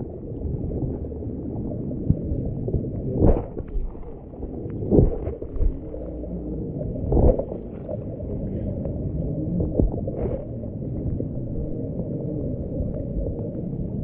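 Muffled, steady rumble of flowing stream water picked up underwater, with short louder knocks about three, five and seven seconds in.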